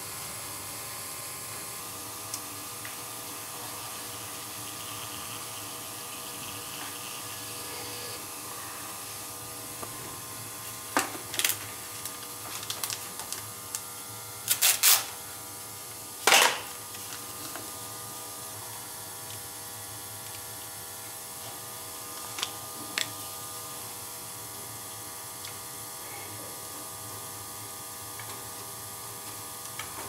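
Gas boiler's burner firing steadily, an even rush with faint steady tones under it. Several sharp clicks and knocks break in between about 11 and 17 seconds in, and two more around 22 seconds.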